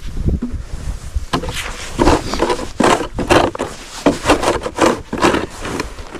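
Repeated crunching or scraping strokes in snow, about two a second, with low wind rumble on the microphone.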